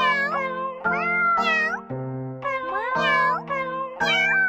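Novelty music track whose melody is made of pitched cat meows over sustained keyboard chords, a new meow starting with each chord change, about two a second.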